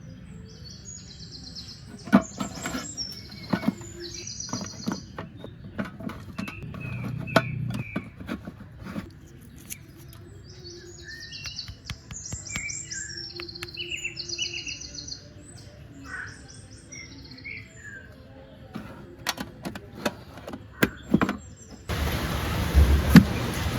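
Small birds chirping in repeated quick high phrases, with scattered sharp clicks and knocks. Near the end, a steady loud hiss-like noise starts abruptly.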